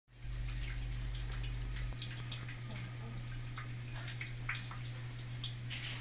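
Thin stream of tap water from a kitchen faucet falling onto a shallow dish, with irregular small splashes and drips, over a steady low hum.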